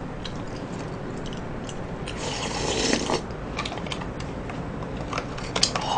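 Wooden spoon scraping and scooping shaved ice in a plastic cup, with small scattered clicks and one longer scrape about two seconds in.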